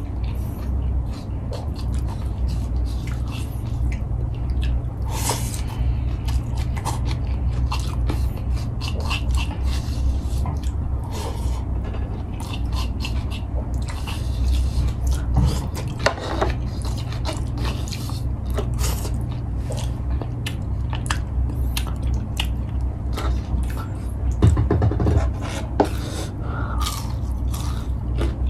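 A person chewing and eating by hand close to the microphone, with many short wet mouth clicks and smacks and fingers scraping food from a wooden bowl. A steady low hum runs underneath.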